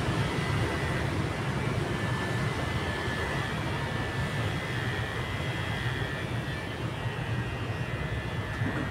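Electric hair clippers running with a steady buzz while trimming a man's hair.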